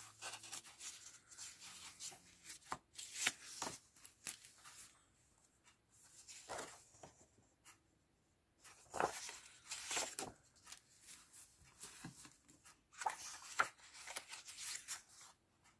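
Sheets of scrapbook paper being leafed through by hand: faint rustles and slides of paper, coming in small clusters with short pauses between.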